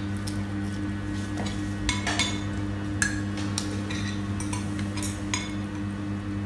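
Metal spoons and forks clinking and scraping against ceramic plates and rice bowls during a meal: scattered light clinks at an irregular pace, over a steady low hum.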